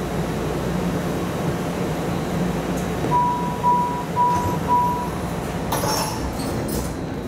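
MARTA rapid-transit railcar stopped at a station: its door-closing warning chime sounds as four short, even beeps about three seconds in, then the doors slide shut with a clatter and thud near the end, over the car's steady hum.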